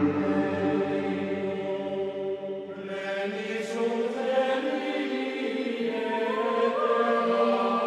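Background music of choral voices holding long, sustained chords, moving to a new chord about three seconds in.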